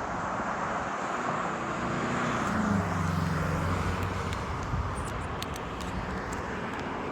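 Road traffic going by, with one vehicle's engine note rising and passing about two and a half seconds in.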